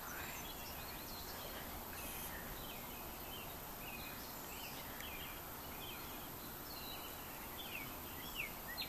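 Steady hiss of light rain falling, with faint, short high chirps of birds scattered throughout.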